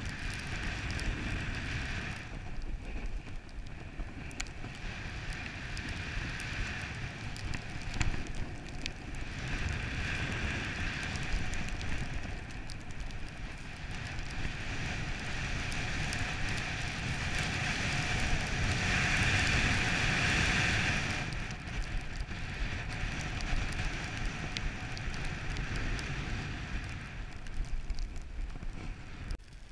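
Snowboard sliding and carving over snow with wind rushing over the microphone: a steady scraping hiss over a low rumble that swells loudest about two-thirds of the way through, with a sharp knock about 8 seconds in.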